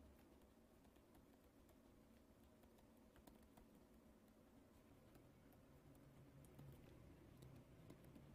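Near silence: faint room tone with scattered soft ticks from a stylus tapping and scratching on a pen tablet as handwriting is written.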